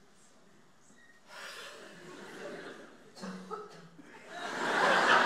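Audience chuckling and laughing, starting about a second in and swelling to its loudest near the end.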